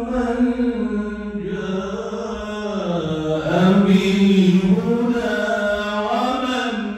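A man's solo Quran recitation in the melodic mujawwad style, with long drawn-out notes; the pitch dips about halfway through, then rises again.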